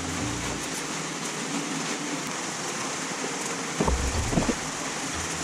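Steady hiss of heavy rain, with a few soft knocks a little before four seconds in as the plastic scooter covers are handled and wiped.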